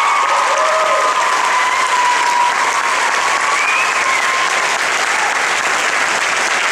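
Audience applauding steadily, with a few voices cheering over the clapping in the first few seconds.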